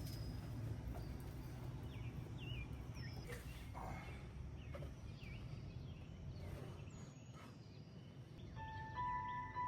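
Small birds chirping in short, quick calls over a low, steady outdoor rumble. Near the end a held musical tone comes in.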